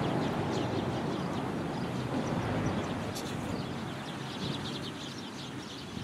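Low rumble of a passing vehicle outdoors, slowly fading away, with a few faint high ticks over it.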